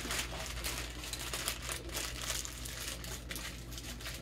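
Plastic food wrap crinkling and rustling as it is handled, in a dense run of small irregular crackles.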